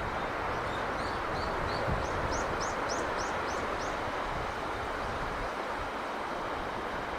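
Steady rushing of sea breeze and surf, with a small bird singing over it: three short notes about a second in, then a quick run of six higher notes.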